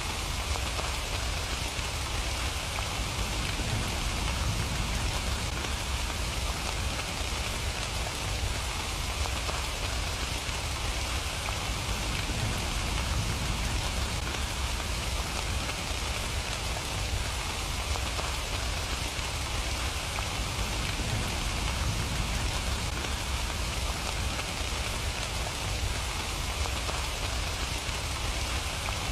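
Steady, even rain, a continuous hiss of drops with a low rumble underneath and no change in strength.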